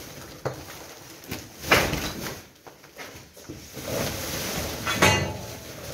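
Woven plastic rubble sacks being handled and filled with demolition debris: a few short scrapes and thumps, the loudest just under two seconds and about five seconds in.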